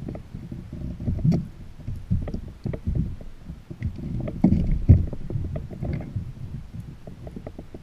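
Water slapping and knocking against a sit-on-top fishing kayak's hull in a light chop, in irregular low thumps, the loudest a little before the five-second mark.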